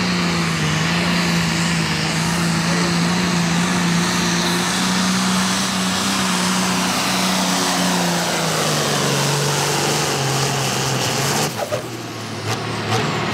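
Turbocharged diesel engine of a Ford light pro stock pulling tractor running hard under full load as it drags the sled. Its note sags about two-thirds through, then drops away near the end as the pull comes to a stop.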